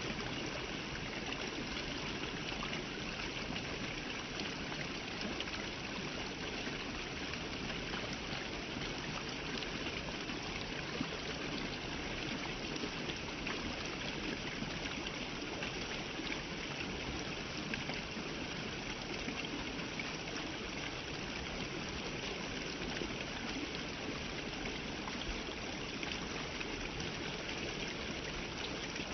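Stream water flowing steadily, an even continuous rush with no breaks.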